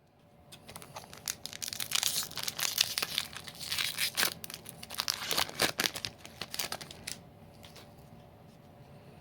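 Foil booster-pack wrapper being torn open and crinkled, a dense run of crackling and tearing that stops about seven seconds in.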